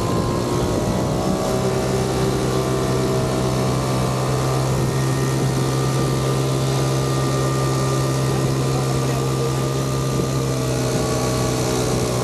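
Boom-inflation air blower spinning up and then running at a steady pitch, pushing air through the hose into the Current Buster 2 boom's chambers.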